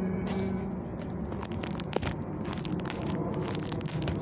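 Close rustling and crackling with many small clicks: morning glory leaves and vines brushing against the phone as it is pushed in among them. A hummed note trails off in the first second.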